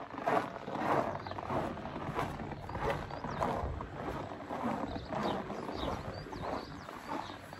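Footsteps crunching on packed snow at a steady walking pace, about one and a half steps a second.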